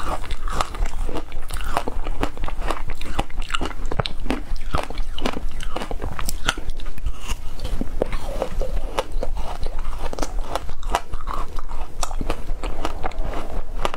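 Frozen passion-fruit ice being bitten and chewed close to the microphone: dense, irregular crunching and cracking of hard ice, over a steady low hum.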